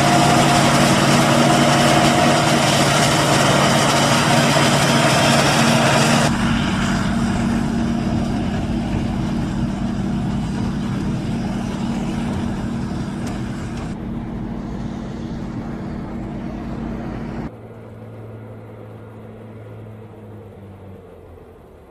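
Claas Jaguar 880 forage harvester running under load as it chops maize and blows it into a forage wagon, with the towing tractor's engine running alongside: loud dense machine noise with steady engine tones. The sound steps down after about six seconds and grows fainter. Near the end it drops suddenly to a quieter, steady distant engine hum.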